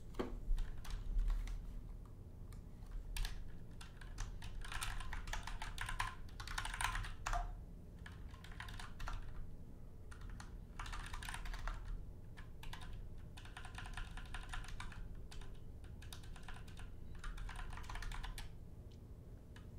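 Typing on a computer keyboard: bursts of rapid keystrokes lasting a second or two each, separated by short pauses, as terminal and vim commands are entered.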